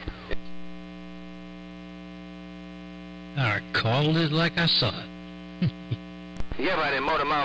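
Steady electrical hum with a ladder of harmonics over an AM CB radio channel: a keyed carrier with no voice on it. About three and a half seconds in, a short warbling, voice-like sound breaks through for a second or so, and speech picks up near the end.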